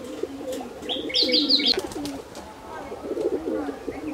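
Pigeons cooing continuously, several overlapping. About a second in, a small bird gives a quick run of high chirps.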